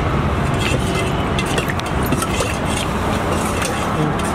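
Steady road traffic noise, with scattered light clinks of a steel ladle against a steel pot as curry is stirred and scooped.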